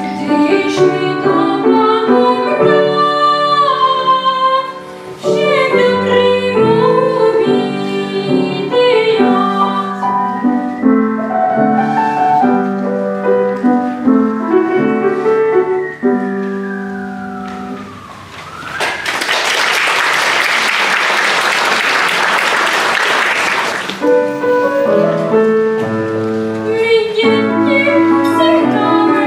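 A voice singing with piano accompaniment, the song ending on a long high note that slides down, then about five seconds of audience applause, after which the piano and singing start again.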